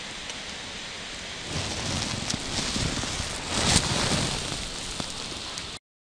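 Steady hiss of light drizzling rain. About a second and a half in, louder rustling and rumbling with a few sharp clicks joins it, and the sound cuts off abruptly near the end.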